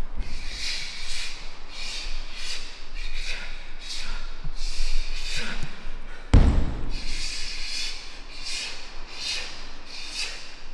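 Kung fu students performing a form in a hall: a run of short, sharp hissing sounds, roughly two a second, with one heavy thud about six seconds in.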